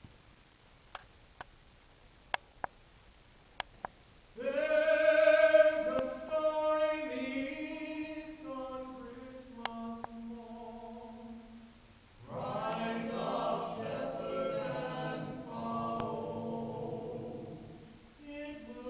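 Small vocal ensemble singing a Christmas carol a cappella, with vibrato. A few sharp clicks sound in the quiet first four seconds before the singing starts; after a short break about twelve seconds in, the singing comes back fuller, with several voices together.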